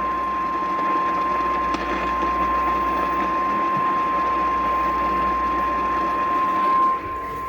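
Weather radio sounding its warning alarm: one long, steady, single tone near 1050 Hz, the NOAA Weather Radio alert tone that comes before a warning message. It plays over the receiver's steady static hiss.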